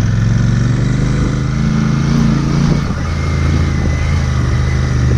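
Royal Enfield Interceptor 650's parallel-twin engine running under way as the motorcycle is ridden. It rises in pitch for a couple of seconds, then eases off briefly about three seconds in before pulling again.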